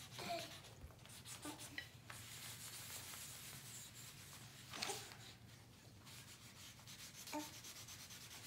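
Felt-tip markers being scribbled quickly back and forth on paper while a drawing is coloured in, a faint scratchy rubbing of many fast strokes.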